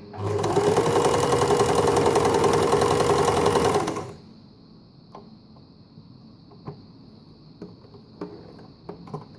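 Empisal Dressmaker 270D sewing machine running at a steady speed for about four seconds, then stopping. A few light clicks follow.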